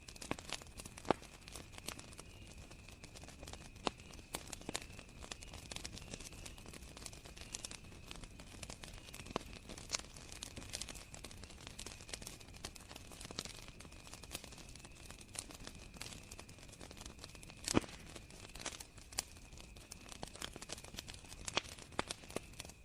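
Campfire crackling with irregular pops and snaps, the loudest about eighteen seconds in, over a steady high chirring of crickets.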